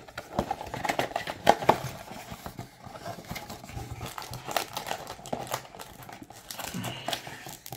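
Cardboard trading-card box being opened by hand: the top flap pried up and bent back, with irregular crinkling, scraping and small clicks of the card stock and packaging.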